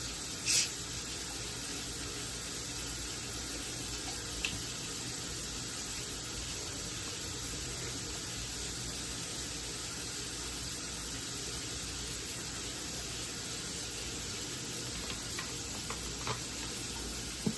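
A bottle of Coke opened with a short fizzing hiss about half a second in, then a steady, even hiss as the cola is poured into a crock pot, with a couple of faint ticks.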